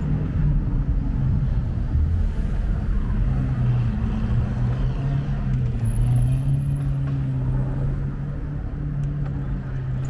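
City road traffic, with the engine of a nearby motor vehicle running in a steady low hum.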